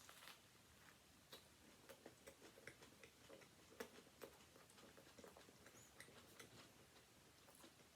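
Faint, irregular clicking and soft wet mouth sounds of someone chewing a bite of a ham sandwich.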